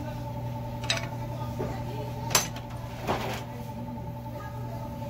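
Light metallic clinks and clicks of engine parts being handled on the open twin-cam cylinder head of a Suzuki K6A engine, three sharp ones with the loudest midway, over a steady background hum.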